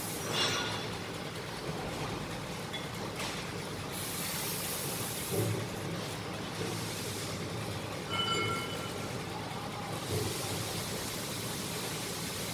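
Steady workshop background noise, with a few soft knocks as steel valve parts are handled, and two brief high-pitched squeals, one just after the start and one about eight seconds in.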